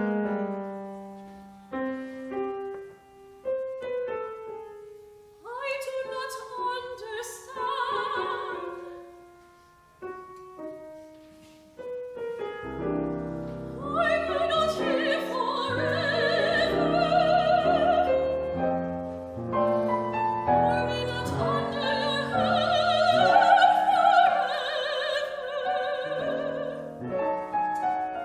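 Grand piano accompanying operatic singing. Sparse piano chords ring and die away, a singer with vibrato comes in briefly about five seconds in, and from about twelve seconds in the piano grows fuller and louder under long, high notes sung with wide vibrato.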